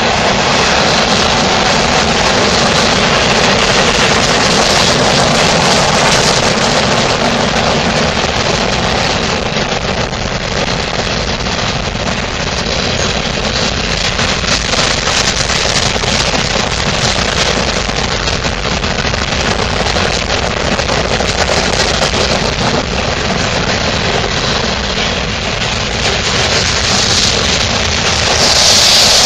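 Freight cars of a long mixed freight train rolling past at close range: steel wheels clattering and rumbling on the rails in a steady, rapid rattle, a little louder near the end.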